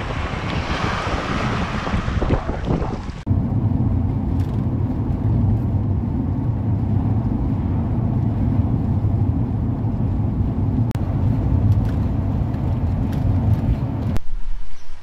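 Waves breaking and washing over rocks, with wind on the microphone, for about three seconds. Then an abrupt cut to the steady low rumble of road and engine noise inside a moving motorhome's cab, which drops away suddenly near the end.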